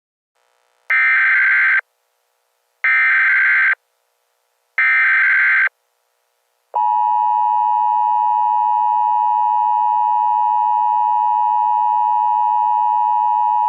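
Emergency Alert System SAME header: three bursts of data tones, each just under a second and about two seconds apart. About seven seconds in, the steady EAS attention signal starts and runs on. Together they mark the start of an emergency alert broadcast.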